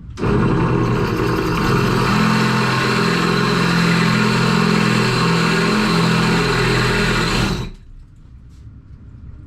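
Hammer drill boring a 5/16-inch anchor hole through the shower wall, running steadily at full speed for about seven and a half seconds before stopping.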